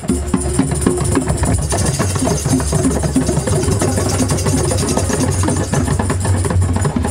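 Rhythmic music with drums and percussion, starting suddenly and going on at a steady, busy beat over a low bass.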